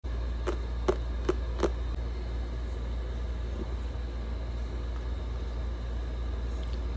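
Steady low rumble throughout, with four sharp taps in quick succession in the first two seconds as hands grip and handle a cardboard product box.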